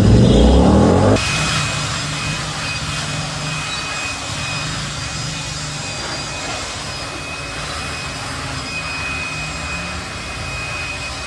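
An engine revs up, rising in pitch, then cuts off abruptly about a second in, giving way to a steady hissing noise with a faint high whine.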